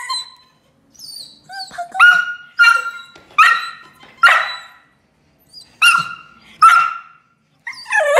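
Border collie giving a string of high-pitched yelping barks and whines, rising and falling in pitch, with a short pause about five seconds in. It is fussing to demand a treat.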